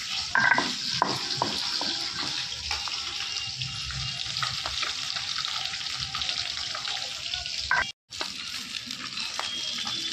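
Tilapia pieces sizzling as they fry in oil in a wok, with a few knocks near the start and a spatula turning the fish. The sound breaks off for a moment about eight seconds in.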